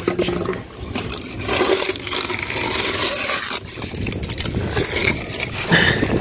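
Dry leaves and debris crunching and scraping as a hand clears them out of a clogged rooftop drain opening, with wind rumbling on the microphone.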